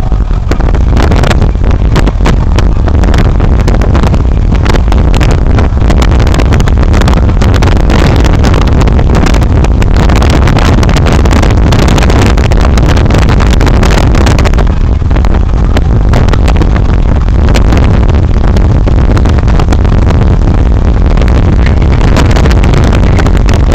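A car travelling at speed, heard from inside: a steady, very loud rumble of engine, road and wind, crackling with distortion.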